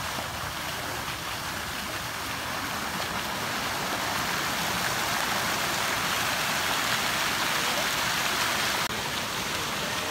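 Water splashing from fountain jets falling into a pool: a steady rushing hiss that swells a few seconds in and eases slightly near the end.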